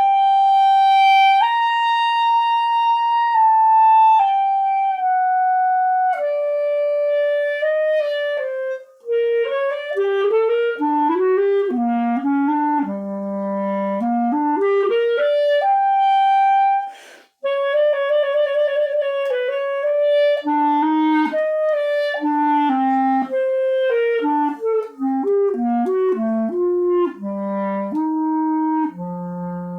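Freshly overhauled Lafayette hard-rubber student clarinet playing an etude: long held notes at first, then moving passages that run down into the low register. There is a short break for breath about 17 seconds in, and it closes on a long low note.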